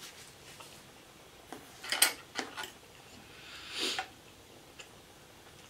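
Plastic fork clicking and scraping on a plate of loaded fries: a cluster of sharp clicks about two seconds in, then a brief soft rustle near four seconds and one more small click.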